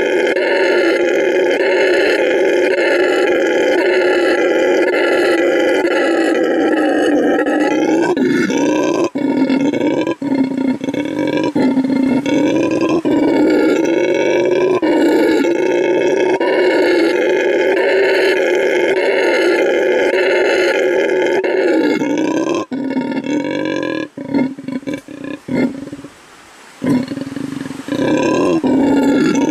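Male red howler monkey giving his loud territorial howl: a long, continuous deep call that breaks into shorter howls with brief gaps in the later part, nearly stops for a moment, then resumes near the end.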